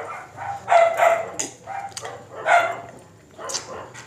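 A dog barking in a series of short barks, each about every half second to a second apart.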